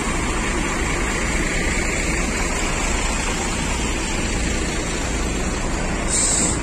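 Idling diesel bus engines giving a steady low rumble mixed with broad noise, and a short sharp hiss about six seconds in.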